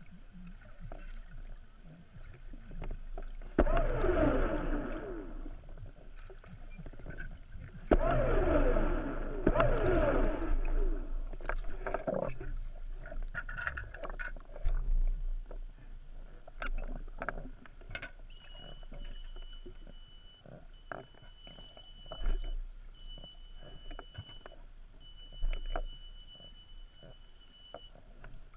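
Underwater: exhaled scuba bubbles gurgle twice, each burst lasting about two seconds, among scattered clicks and crackles. In the second half a thin, steady high tone sounds in four long stretches with short breaks between them.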